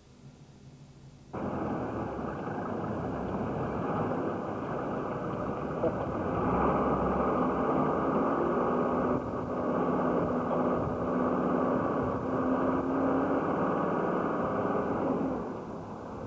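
Engine and road noise heard from inside a moving vehicle, starting abruptly about a second in and running steadily, with a faint steady hum.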